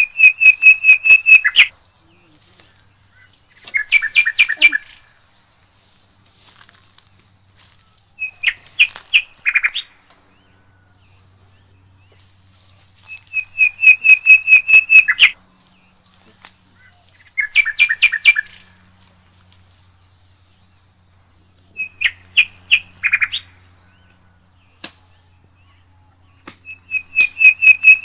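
A bird calling in loud, regular bouts, each a quick run of sharp, evenly spaced notes lasting one to two seconds, repeated about every four to five seconds, seven times.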